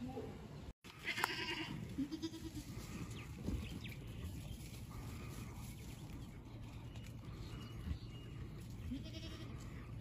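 Boer goats bleating, a few short calls: one about a second in, another around two seconds in, and one near the end.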